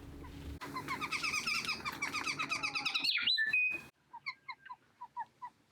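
Small songbirds calling: a fast run of repeated chirps, then a few clear whistled notes, then a slower series of soft chirps.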